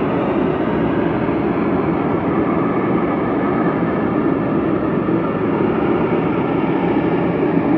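Loud, steady rumbling drone with no breaks or changes in pitch, the unexplained 'weird sound' the recording was made to capture.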